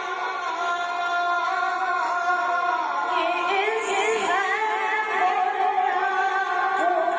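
Male Quran reciter chanting in the melodic Egyptian style, holding long drawn-out notes. A quavering ornament comes in the middle, then he settles back onto a sustained tone.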